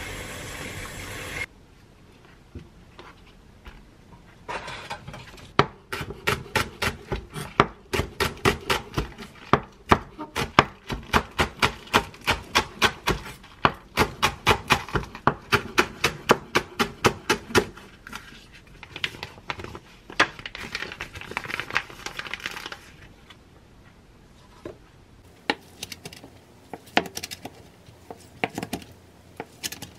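Tap water running into a steel sink for about a second and a half, then a chef's knife chopping green onion on a wooden cutting board in a steady run of about two to three cuts a second. Near the end come a few slower cuts through a beef steak on the same board.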